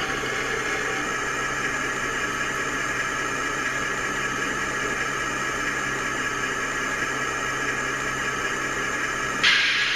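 An HO-scale Athearn GP-38 model locomotive's DCC sound decoder playing a steady diesel engine idle through its small on-board speaker. Near the end a sudden loud hiss cuts in for about a second.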